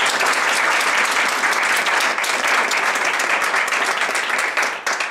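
Small audience applauding, steady and dense, dying away near the end.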